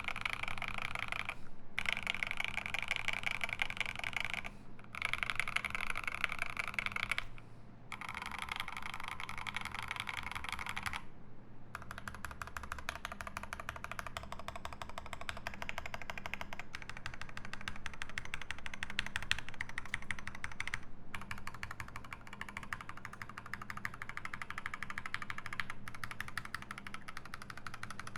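Fast typing on a GMMK PRO mechanical keyboard with lubed Alpaca linear switches, an aluminium plate and ASA keycaps: a dense, continuous patter of keystrokes, broken by a few short pauses in the first ten seconds or so.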